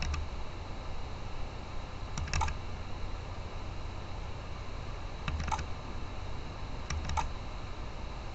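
Computer mouse buttons clicking: quick double-clicks, three times, as folders are opened. A faint steady hum runs underneath.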